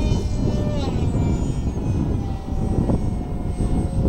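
Whine of a small RC foam parkjet's electric motor and propeller in flight. The pitch drops about a second in, then holds and sags slowly lower. Heavy wind rumble on the microphone runs underneath.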